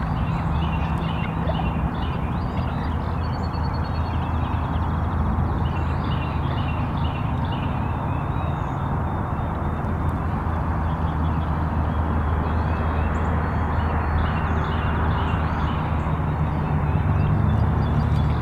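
Steady low rumble of road traffic, growing louder near the end, with songbirds chirping and one brief trill over it.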